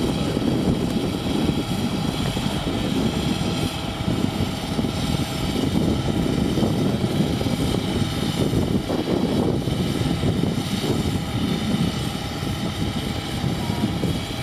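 Aquatic weed-harvester boat's engine running steadily: a continuous low drone with a faint steady whine above it.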